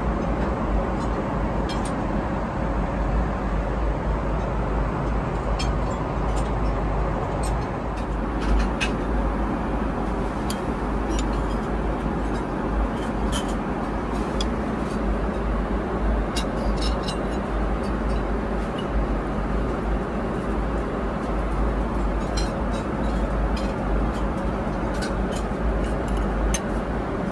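Steady cabin roar of a Boeing 777-300ER in flight: engine and airflow noise with a deep rumble and a faint steady hum, and scattered light clicks and clinks throughout.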